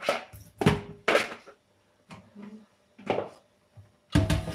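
A plastic colander and a bowl handled over a stainless-steel sink: a handful of short, separate knocks and clatters.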